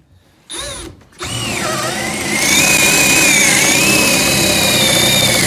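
Power drill boring a paddle (spade) bit through a 2x4. The motor gives a short blip, then runs steadily with a wavering whine, and the sound grows louder about two seconds in as the bit cuts into the wood.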